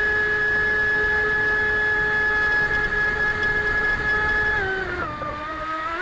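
RC mini jet boat's motor and water-jet drive running with a steady high whine over a wash of water noise. About four and a half seconds in, the pitch drops as the throttle is eased, then climbs back up right at the end.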